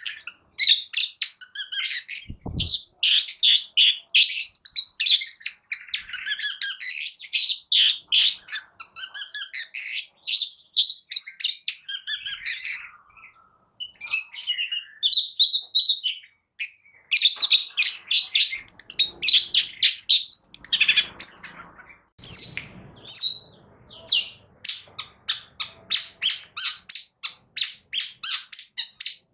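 Long-tailed shrike (cendet) singing a fast, continuous chattering song of rapid high notes and trills, with a short pause about halfway through. A brief low thud sounds near the start.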